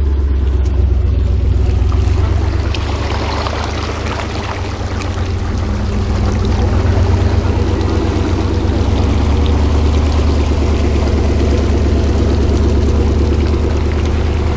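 Jeep engine running steadily at low speed while the vehicle fords a creek, with water splashing and rushing along the body and rock sliders.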